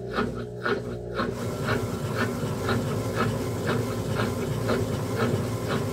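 Consul 7.5 kg top-load washing machine running on spin with only the agitator turning and the basket stopped: a steady motor hum with a loud, repeated scraping noise about twice a second. The repairer takes it that the actuator is not pulling far enough to engage the basket.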